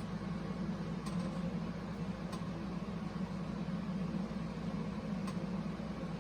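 Steady low background hum, with three faint light clicks about one, two and five seconds in.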